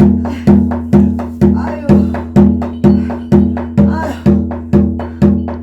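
A drum beaten in a steady, even rhythm, about two strokes a second, each stroke ringing low and fading before the next.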